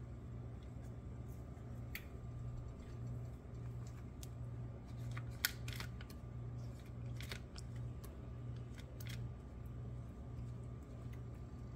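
Faint handling sounds of an egg roll wrapper being folded and rolled by hand on its plastic packaging tray: scattered light clicks and crinkles, with one sharper click about five seconds in. A steady low hum runs underneath.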